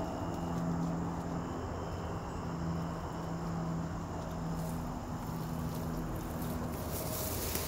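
A steady low hum under the thin, steady buzz of insects in the weeds, with dry brush and leaves rustling and crunching in the last few seconds as someone pushes through thick vegetation.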